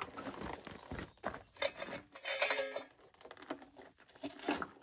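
Crunching on gravel with scattered knocks and light clatter as a Toro Recycler lawn mower is tilted over onto its side to drain the oil, with a short ringing note about two and a half seconds in.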